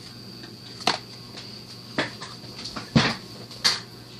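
Four short taps and knocks, about a second apart, the third the loudest, as a stack of trading cards and booster packs are handled and set down on a table.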